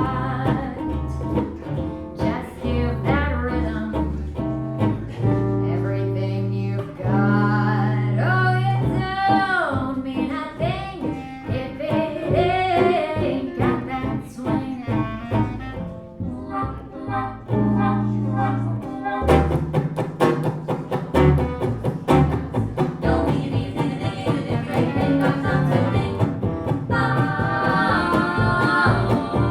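A small acoustic band playing live, with bass notes under a wavering vibrato melody line. About two thirds of the way through, a fast, even strummed rhythm takes over.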